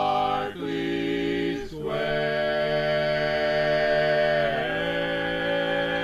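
Male barbershop quartet singing a cappella in close four-part harmony, stretching the word "Berkeley" over sustained chords. The chord changes twice in the first two seconds and is then held, with some voices sliding down to a new chord about four and a half seconds in.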